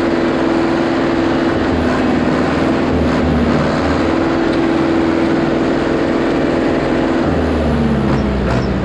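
International Harvester 844 tractor engine running steadily under heavy load, pulling a loaded 10-tonne trailer uphill, its pitch dropping slightly near the end.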